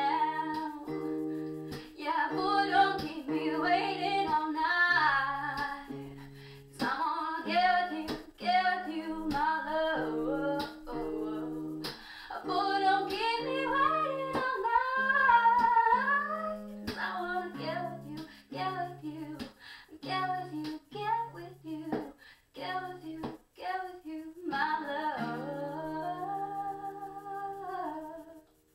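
A woman singing an original song, accompanying herself on strummed acoustic guitar. Near the end she holds one long note, and the song stops.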